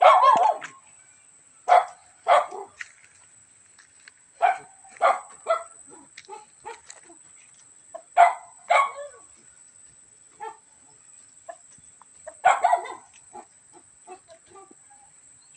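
Short animal calls from a farm animal or dog, about nine of them, coming singly and in quick groups of two or three every few seconds.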